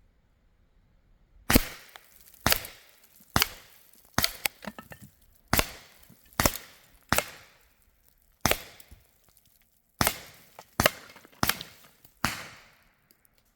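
A quick string of about a dozen sharp cracks, most under a second apart, each with a short ringing tail: air gun shots fired in rapid succession.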